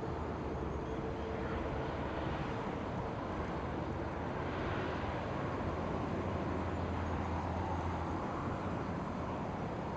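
DL class diesel locomotives running with a train: a steady rumble with a low engine hum.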